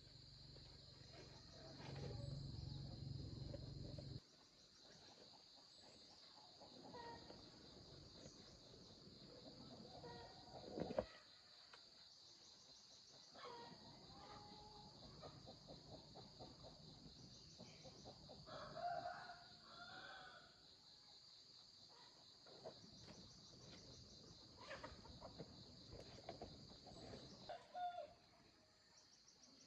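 A rooster crows about two-thirds of the way through, over a steady high chirring of insects. A low hum runs for the first few seconds, then stops.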